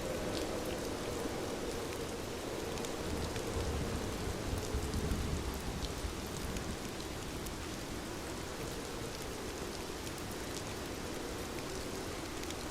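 Steady rainfall hiss with scattered small crackles of a fire in a fireplace. A low rumble swells briefly in the middle.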